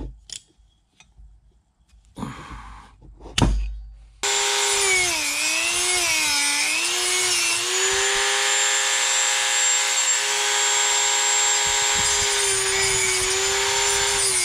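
A few clicks and knocks of tools being handled, then about four seconds in a Dremel rotary tool starts and runs with a loud, steady high whine as its cutoff wheel cuts a slit into a seized metal key in a shaft. The pitch wavers for a few seconds, then holds level.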